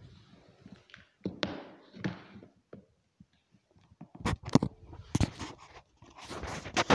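Handling noises on a wooden floor: scattered scrapes and rustles, then from about four seconds in a cluster of sharp knocks and rubbing as objects are grabbed and the camera is picked up off the floor.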